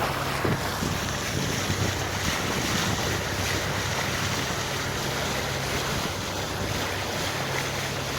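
65 hp Yanmar marine diesel engine running steadily at an even low hum, with wind buffeting the microphone and water noise over it.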